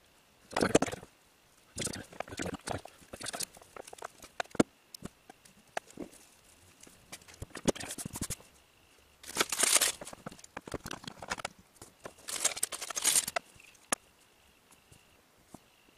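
Handling noise from cable and small hand tools on a tabletop: several rustling, scraping passages about a second long, with scattered clicks and taps between them.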